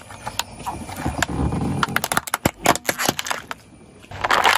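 Plastic toy truck cracking and snapping under a car tyre: a rapid run of sharp cracks over a low rumble. A loud crunch comes near the end.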